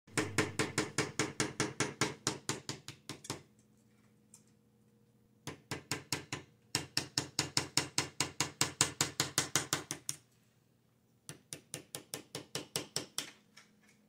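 A small mallet tapping a pointed digging tool into a plaster dig-kit block. The taps come quickly and evenly, about five a second, in three runs with short pauses between.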